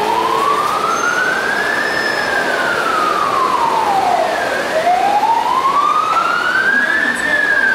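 Emergency vehicle siren wailing, a single tone slowly rising and falling in pitch, about one full cycle every five seconds.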